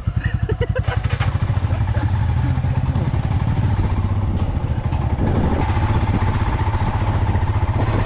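Motorcycle engine running steadily at low revs, its firing pulses heard as a fast, even throb.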